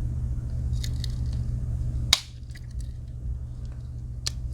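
Victorinox Huntsman Swiss Army knife being handled: light metallic clicks, then one sharp snap about two seconds in as a blade closes against its backspring, and another crisp click near the end. A steady low hum lies underneath.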